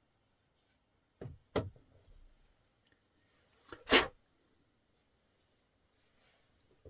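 A few short knocks and clicks of folding-knife parts being handled and set on a work surface. There are two soft knocks about a second in, and one sharp click, the loudest, about four seconds in.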